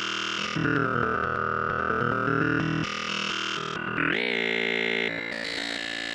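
Make Noise Phonogene granulating a recorded spoken voice into smeared, buzzing pitched drones that shift in steps as its knobs are turned. The pitch sweeps quickly upward about four seconds in.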